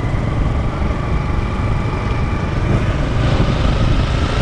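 Motorbike riding along a sand beach, its engine running under heavy wind buffeting on the microphone. The sound changes about three seconds in.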